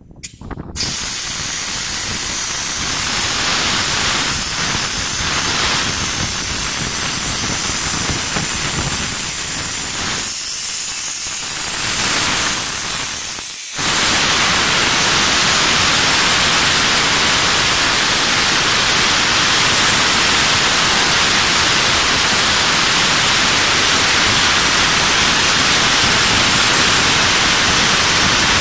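Compressed gas hissing loudly and steadily through the hose and valve of a large steel cylinder fitted with a pressure gauge, starting as the valve is opened. The hiss dips briefly about 13 seconds in, then goes on a little louder.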